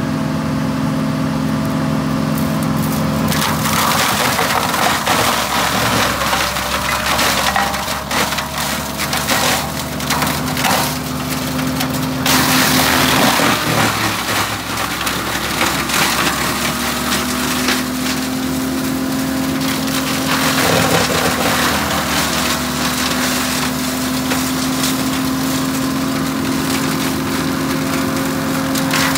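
SEPPI M. Miniforst pick-up shredder on a tractor chopping olive pruning branches: a steady hum from the tractor and rotor under dense crackling and splintering of wood. The crackling picks up about three seconds in and is heaviest in two stretches, one early on and one about twenty seconds in.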